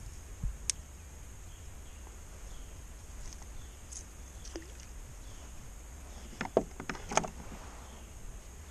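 Handling noises on a plastic sit-on-top fishing kayak while a small bass is unhooked: a knock about half a second in, then a quick cluster of sharp clicks and knocks past the middle. Under them runs a steady low rumble.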